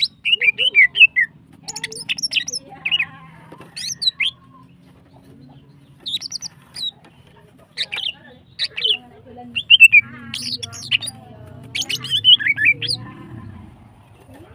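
Female greater green leafbird (cucak ijo) calling: short bursts of quick chirping and whistled notes, several phrases separated by short pauses, with a lull about five seconds in.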